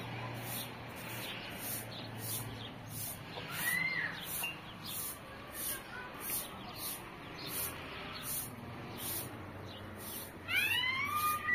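An animal's cries: a short rising-and-falling call a few seconds in, then a run of louder arched calls near the end. Under them is a faint high ticking about twice a second, over steady background noise.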